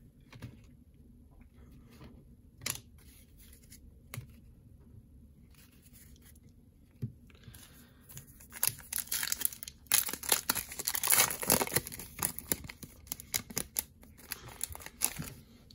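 Foil trading-card pack wrapper being torn open and crinkled in the hands: a dense crackling run that begins about halfway through and is the loudest sound. Before it there are only a few faint clicks.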